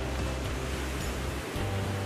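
Background music with held bass notes that shift about a second and a half in, over a steady noisy wash.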